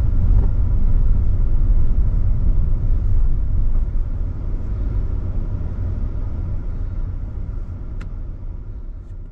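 A car driving, a steady low rumble of engine and road noise that fades out over the last few seconds.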